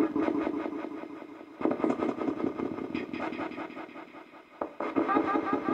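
Spirit communication device (spirit box) playing through its wooden speaker box with echo: a fast, choppy stutter of chopped fragments and static that swells up suddenly about one and a half seconds in and again near the end, fading in between.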